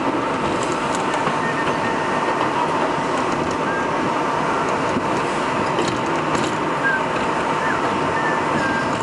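R62A subway train running on elevated track, heard from on board: a steady wheel-and-rail noise with a constant high whine, and a few brief high squeaks from about halfway in.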